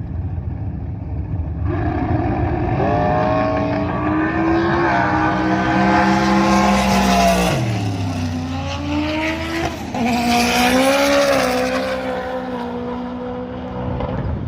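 Drag-racing car accelerating hard down the strip: engine pitch climbs, drops about seven and a half seconds in as it changes gear, then climbs again. The run sounded like clutch slip.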